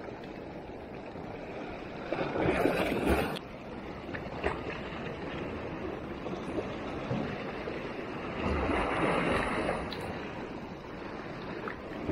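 Sea surf washing against a rocky shore, a steady rush that swells louder twice, about two seconds in and again around eight seconds, with a few light clicks.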